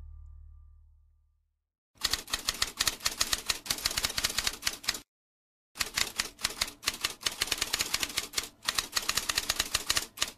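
Typewriter keys typing in fast runs: one run of about three seconds, a short pause, then a second run of nearly five seconds. Before the typing, the last of a brass music track fades out.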